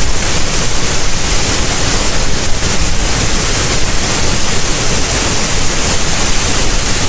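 Waterfall: a loud, steady rush of falling water, even across the whole range from deep rumble to hiss.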